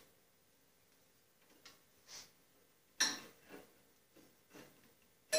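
Faint, scattered metal clicks and taps from hands adjusting a Delta bandsaw's blade and tracking. A sharper tap comes about three seconds in, and a metallic clink with a short ring comes at the end.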